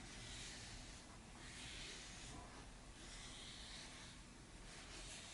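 A clothes iron sliding back and forth over painted paper: faint, soft rubbing swishes, about one stroke every second and a half. The iron is pressing the pages flat and drying the watercolour.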